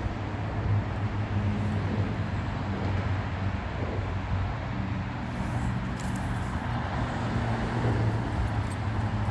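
Steady low rumble of road traffic crossing the highway bridge, with a low hum that holds through the whole stretch.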